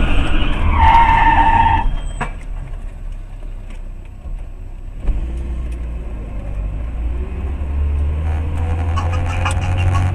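Low road and engine rumble of a car, heard from inside its cabin, with a steady high-pitched squeal lasting about a second near the start. The rumble fades for a few seconds, then builds again.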